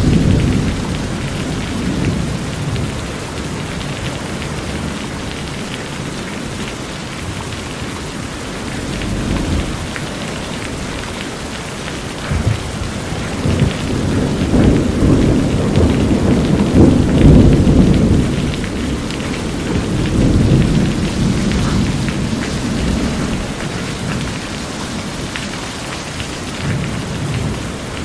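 Steady heavy rain drumming on a corrugated metal roof, with thunder rumbling low in several swells, loudest a little past the middle.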